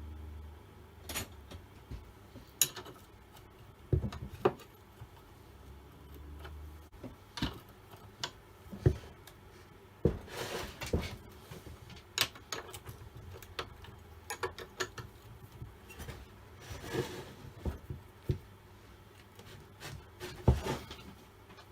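Hand tools and metal parts of an old Stihl 08S chainsaw clinking, knocking and scraping as the saw is taken apart, with irregular sharp knocks and a couple of longer scrapes. A low hum stops about seven seconds in.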